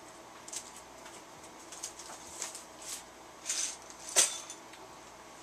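Comic books being handled and set down: several short crinkling rustles, and a sharper tap about four seconds in.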